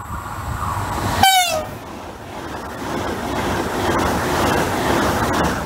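Frecciarossa 1000 (ETR400) high-speed electric train sounding one short horn blast about a second in, the pitch dropping at its end. The train then rushes past at speed, a loud rushing wheel and air noise that swells and falls away near the end.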